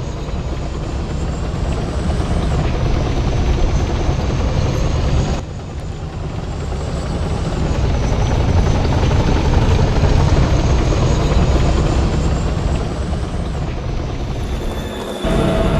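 Remote-control M1A2 Abrams tank model running with its engine sound effects on: a steady low rumble under a high whine that slowly climbs and then drops back several times. The level dips briefly about five seconds in.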